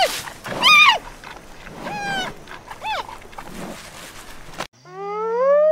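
Giant panda giving a series of short bleating calls, each rising then falling in pitch, about one a second. About four and a half seconds in, the sound cuts to a different, longer animal call that climbs steadily in pitch, with a low steady hum under its start.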